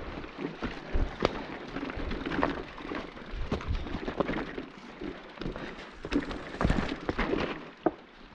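Scattered light clicks, knocks and rustling, with sharp ticks coming at irregular intervals and no steady machine sound.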